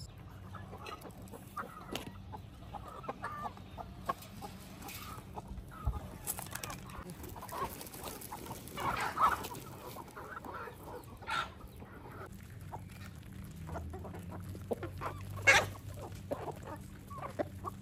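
A flock of domestic chickens clucking, with short calls scattered throughout, a louder run of calls about halfway and one loud call near the end.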